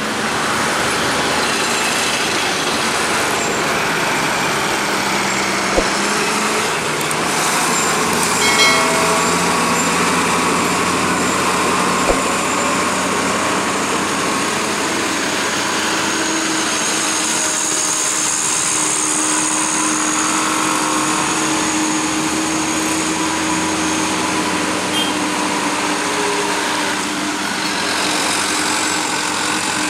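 Road traffic climbing a steep hill: the diesel engines of a coach and a loaded cargo truck pulling hard uphill, with motorcycles and cars passing close by.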